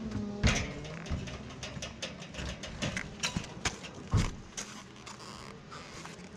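Knocks and thumps of a person in motocross boots stepping down out of a metal car trailer and walking on dirt, with a loud thump about half a second in and another about four seconds in.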